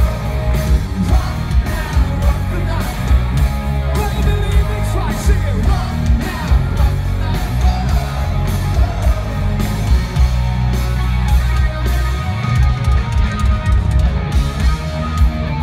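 Hard rock band playing live at full volume: drums, bass, keyboards and electric guitar, with singing.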